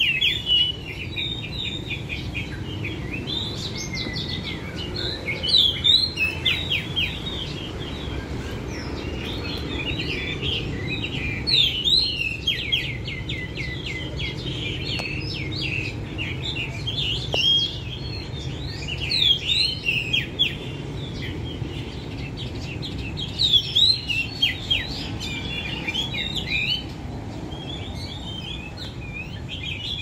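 Caged songbirds chirping and singing rapid, high trilling phrases, with louder bursts every few seconds. This is a 'máy' bird, a constant singer kept to rouse the male birds in the surrounding cages into song.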